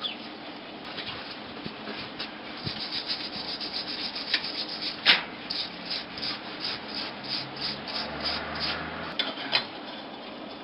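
Rhythmic rubbing strokes, about three a second, like hand work with an abrasive tool, with one sharp knock about five seconds in.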